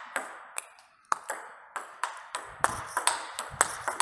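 Table tennis rally: a ball clicking back and forth off the rackets and the table in a quick run of sharp ticks as topspins are hit with a DHS Hurricane 3 Neo rubber. There is a short break just before a second in, then the rally starts up again.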